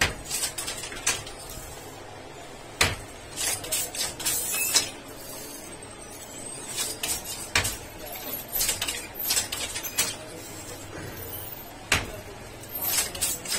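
A wooden pit handloom weaving a Banarasi silk saree, clacking as it works: sharp wooden knocks a few seconds apart, four of them, as the batten beats in the weft, with lighter rattling clicks of the shuttle and loom frame between.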